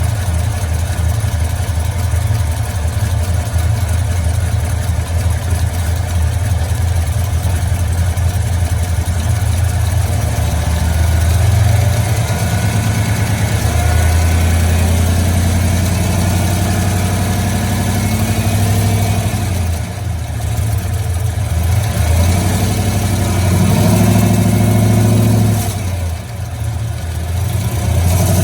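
Cammed Chevrolet Silverado engine idling and revved up several times, with a screeching noise in its running that the owner cannot identify.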